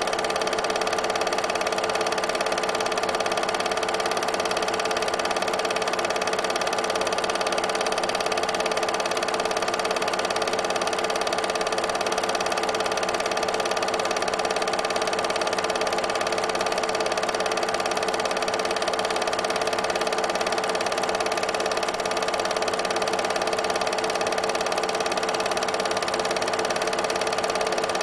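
8mm film projector running during the film's transfer: a steady, unchanging mechanical hum.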